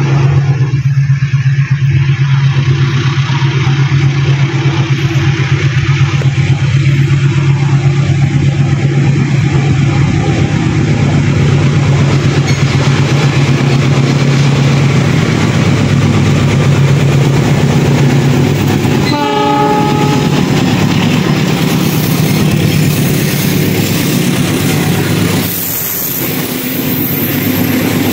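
Diesel passenger train approaching and passing close by: a steady low engine hum, a brief horn blast about two-thirds of the way in, then the rush and wheel clatter of the coaches going by.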